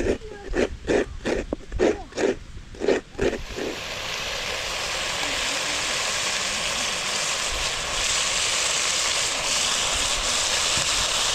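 A run of sharp, evenly spaced knocks, about three a second, stops after a few seconds. Then a steady sizzle of food frying in hot oil in a cooking pot.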